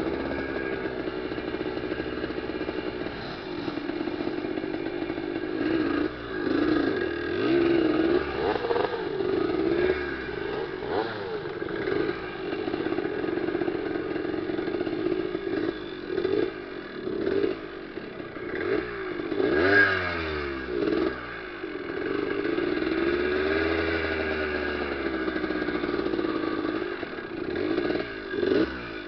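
Trail motorcycle engine running under way, its pitch rising and falling continually with the throttle, with short revs around the middle.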